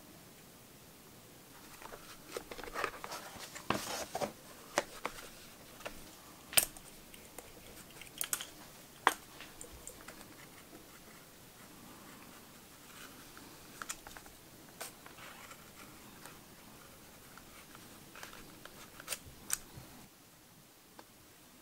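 Stiff leather pieces handled and folded on a cutting board: scattered scrapes and rustles, busiest a few seconds in, with a few sharp clicks along the way.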